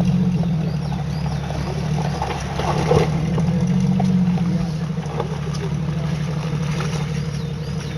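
Off-road vehicle engine running steadily at low revs, with scattered light knocks and clatter over it.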